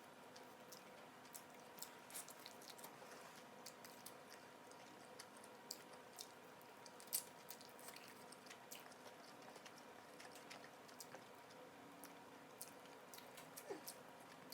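Faint chewing and mouth sounds of a person eating: scattered small clicks and smacks, one louder about seven seconds in, over a faint steady hum.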